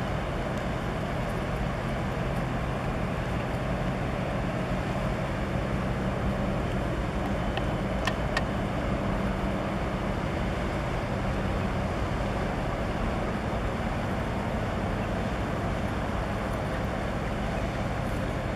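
Tugboat's diesel engine running with a steady low hum over a wash of harbour noise, the hum weakening in the second half as the boat moves off. A couple of faint clicks about eight seconds in.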